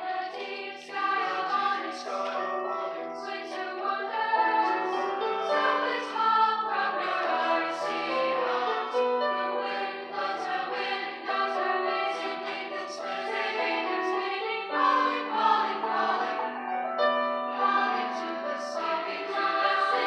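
High school mixed chorus singing in harmony, many voices holding sustained notes.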